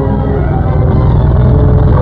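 Engine of a DUKW amphibious truck running under load as it drives through floodwater, growing louder about a second in, with orchestral music playing over it.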